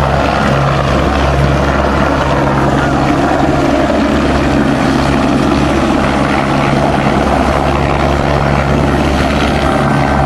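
Eurocopter AS350 AStar helicopters lifting off and hovering low close by: a loud, steady rotor beat and turbine engine sound that holds even throughout.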